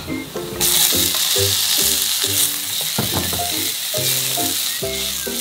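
Chopped tomatoes dropped into a pan of hot avocado oil and fried garlic start sizzling suddenly about half a second in. The sizzle then holds steady as they are stirred with a wooden spatula.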